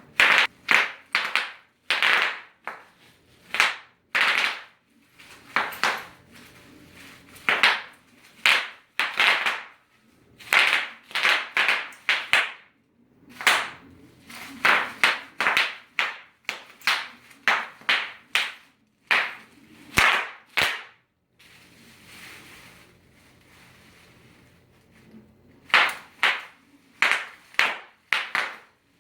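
Bubble wrap cells popping one after another at an irregular pace, each a sharp pop, often two or three in quick succession, with a soft crinkling of the plastic between them. The popping pauses for a few seconds about two-thirds of the way through, then resumes.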